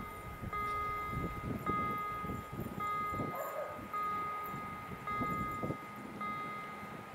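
Level-crossing warning signal ringing as a train approaches: a steady electronic chime of several tones, repeated about once a second.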